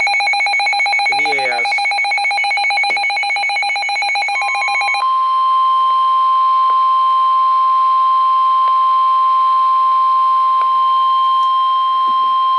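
A rapidly pulsing, multi-pitched electronic alarm beeps for about five seconds. Then the steady single-pitch 1050 Hz NOAA Weather Radio warning alarm tone sounds, signalling that a warning message is about to be read.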